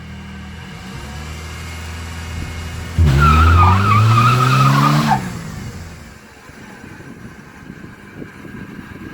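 A car engine running, then about three seconds in it revs up sharply with a high wavering tyre squeal for about two seconds before dying away.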